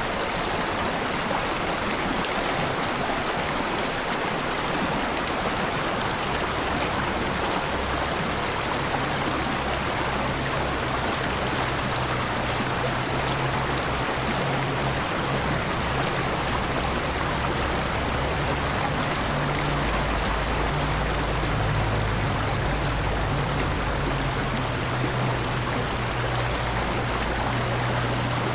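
Mountain valley stream rushing steadily, an even, unbroken sound of running water.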